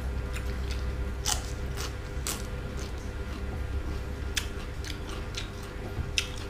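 Close-up mouth sounds of someone biting and chewing crisp raw vegetables, with sharp crunches at irregular moments over wet chewing.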